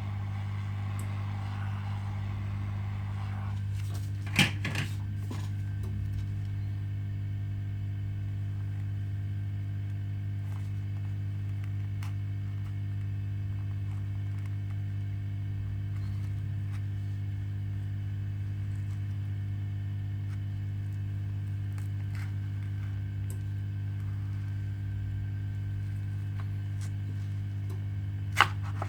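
Steady low electrical hum at a repair bench. A blowing hiss stops about three and a half seconds in, and small tools make occasional light ticks and two sharp clicks, one near the start and one near the end.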